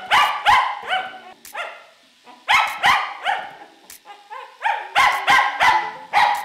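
A nervous cockapoo barking at the grooming clippers: quick sharp barks, about three a second, in three bursts with short pauses between.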